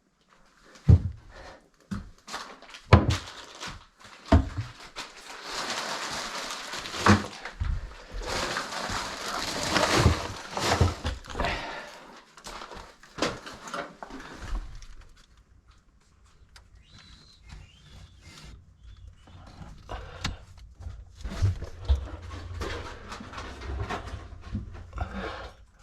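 Hand tools and parts knocking and clattering during under-sink plumbing work, with a rushing hiss for about six seconds in the middle.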